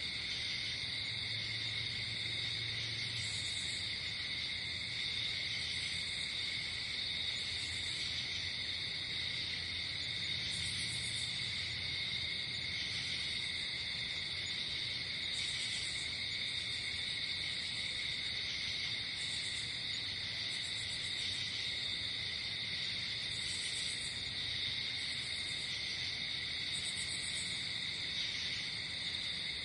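Night insect chorus: crickets chirping in a steady, unbroken drone at several pitches. A higher-pitched insect trills in short bursts every second or two.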